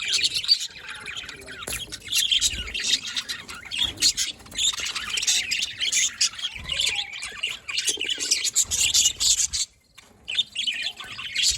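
Budgerigars chattering and chirping continuously, a dense rapid warble with sharp squawks mixed in, pausing briefly near the end.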